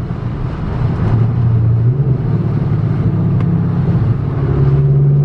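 Fifth-generation Camaro SS 6.2-litre V8, with full bolt-ons and a fresh tune, pulling under acceleration, heard from inside the cabin. The engine note dips right at the start and again about four seconds in, then comes back louder.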